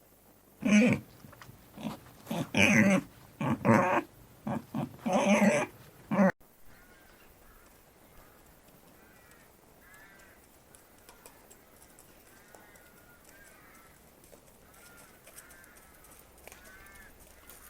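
An animal calling loudly in a run of short harsh bursts for about six seconds, then stopping abruptly. After that comes a faint series of high, arching chirps repeated every second or so.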